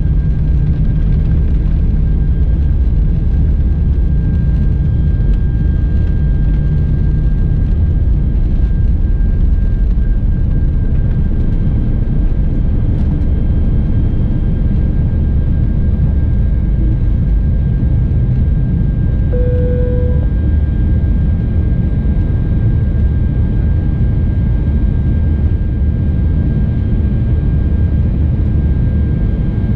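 Airbus A320's jet engines at takeoff thrust, heard inside the cabin by the wing: a loud, steady rumble with a high steady whine. A deeper runway rumble stops about eight seconds in, as the aircraft leaves the ground and climbs. A brief tone sounds about two-thirds of the way through.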